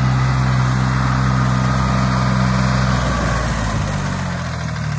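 Engine of a John Deere compact utility tractor with front loader running steadily as it drives up under load; its note eases off about three seconds in as the tractor slows to dump the bucket.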